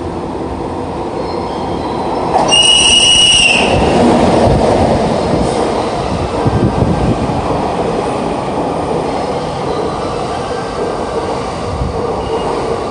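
EF64 electric locomotive sounds its whistle once, a steady high-pitched tone lasting about a second, as it runs into the platform. The locomotive and the E217-series cars it is hauling then roll past with a continuous rumble of wheels on rail.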